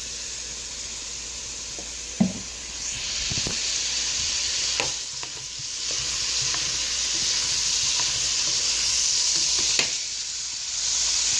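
Butter and olive oil sizzling in a hot pan on the burner, the sizzle growing louder about three seconds in, easing briefly, then swelling again. A few light clicks sound over it.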